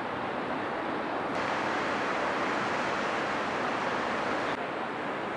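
Steady rushing noise of ocean surf and wind along a rocky shoreline. It turns abruptly brighter about a second in and duller again near the end.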